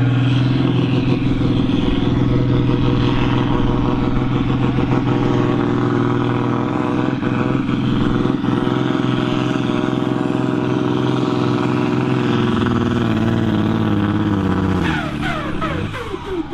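John Deere diesel tractor engine running flat out under heavy load while pulling a weight sled, its note slowly sagging as the load builds. About fifteen seconds in the engine note falls away sharply and the sound gets quieter.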